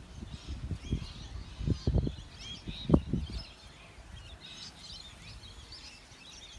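Many birds chirping and calling at once, a busy chatter of short high calls. Low knocks and rumbles come through in the first half, the loudest a sharp thump about three seconds in.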